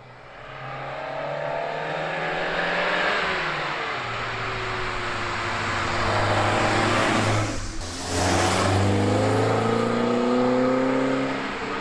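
Alfa Romeo Giulia GT1300 Junior's twin-cam four-cylinder engine pulling hard as the car drives up the lane. The engine note climbs, dips once about three and a half seconds in, and climbs again through the second half.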